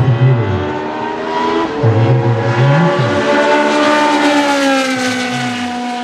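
A historic Formula 1 race car engine at high revs going past. Its note rises to a peak about four seconds in, then falls away.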